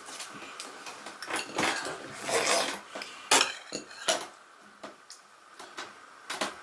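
Light clicks, taps and rubbing from small chocolate decoration pieces being picked off a plastic plate and pressed onto a cream-covered cake on a paper plate, with one sharper click about three and a half seconds in.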